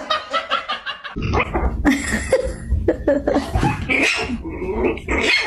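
A dog vocalising, with people laughing.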